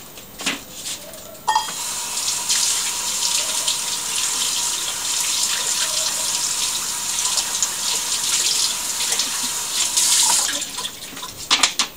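Kitchen tap running full onto matzo sheets held under the stream to wet them: a steady rush of water with a faint steady whine under it. It starts about a second and a half in and is shut off about ten and a half seconds in.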